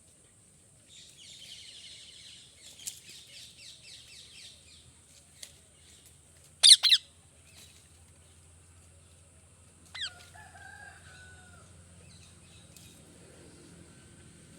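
Parrot calling: a rapid chattering run of chirps, then two loud, sharp screeches about seven seconds in, and a shorter falling call with a brief whistle around ten seconds in.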